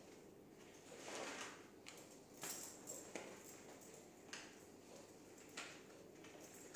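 Faint handling of a compressor's fabric shoulder strap: a soft rustle about a second in, then a few light, sharp clicks spaced a second or so apart.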